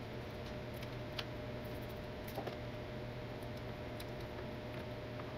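Faint, scattered small clicks and taps of hands working wire leads and tape on a lab bench, over a steady room hum with a faint whine.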